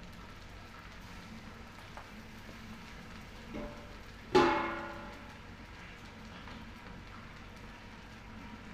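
Fried rice sizzling steadily in a steel wok. About four seconds in there is a soft knock, then a sharp metallic clang that rings and fades over about half a second as the metal spatula strikes the wok.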